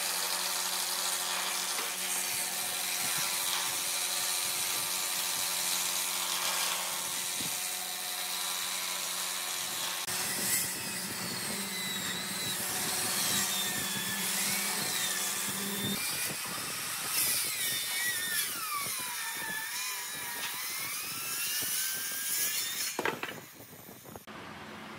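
Handheld circular saw running and cutting through thick slabs of wood, a steady motor hum under dense cutting noise. In the second half the blade's whine slides up and down in pitch as the load on the cut changes, and the sawing stops sharply shortly before the end.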